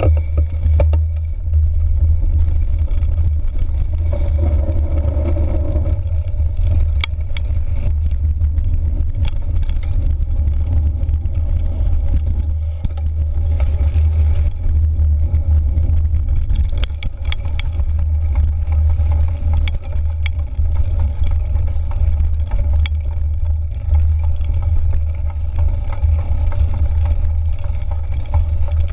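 Wind buffeting the microphone of a handlebar-mounted action camera on a moving bicycle, a steady low rumble, with scattered sharp clicks and rattles from the bike jolting over the trail.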